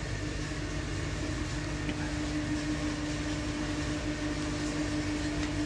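A steady machine hum with one constant low tone over a faint, even rumble.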